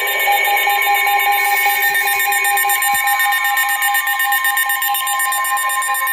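Emergency alert attention tones from more than one receiver sounding at once: several steady, shrill tones layered together, with a rapid pulsing beep running over them. One lower tone drops out about three seconds in.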